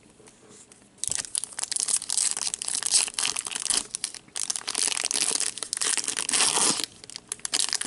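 Foil trading-card pack crinkled and torn open by hand, a dense crackling that starts about a second in and keeps on, with two brief lulls.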